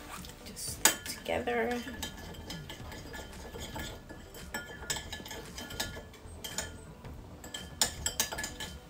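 Metal spoon stirring melted butter and spices in a small ceramic bowl, clinking against the sides in irregular taps, with a quicker run of clinks near the end.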